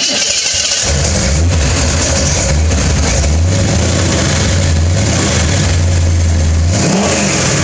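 Lifted Chevrolet truck's new 500-horsepower engine idling loud and deep through dual Flowmaster exhausts, with a brief rise and fall in pitch near the end.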